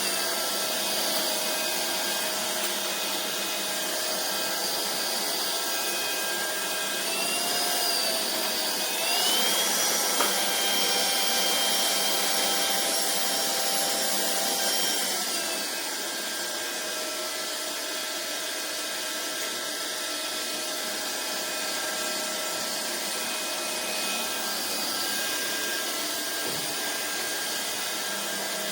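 Vistefly V15s Max cordless stick vacuum running with a steady motor whine and airflow rush. About a third of the way in, the whine rises in pitch and gets louder, then falls back to its first pitch several seconds later.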